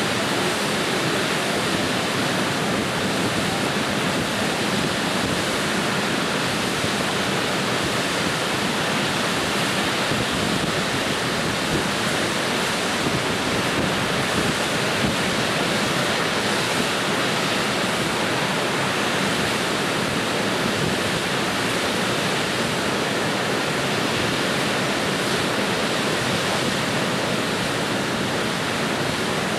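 Water pouring over a low river weir and churning in the foaming white water below it, a steady, unbroken rush.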